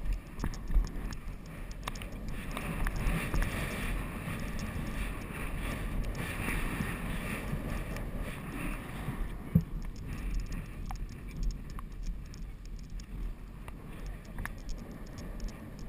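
Wind rushing and buffeting over the microphone of a GoPro camera carried by a polo rider moving at speed on horseback. A few sharp knocks cut through it, the loudest about a second in and near ten seconds in.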